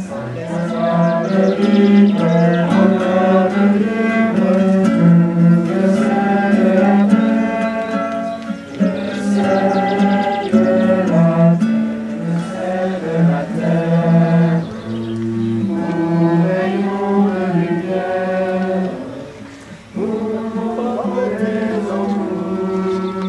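A group singing a hymn together with a guitar, the sung melody moving in steady held notes, with a short break about twenty seconds in.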